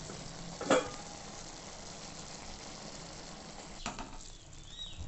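Maggi noodles and vegetables simmering in masala water in a pan, a steady low hiss. A short sharp sound comes about three-quarters of a second in, the loudest moment, and another near four seconds, after which the sound drops quieter.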